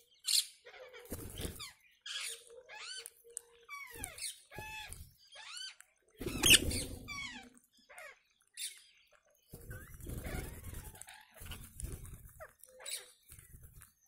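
Rose-ringed parakeets in a flock calling: a stream of short, squeaky, arching calls and chatters, with a loud harsh screech about six and a half seconds in. Bursts of low rumbling noise come and go underneath.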